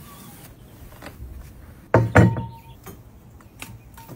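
A potted plant's pot set down on a plastic patio table: one knock about halfway through, then a few light clicks near the end.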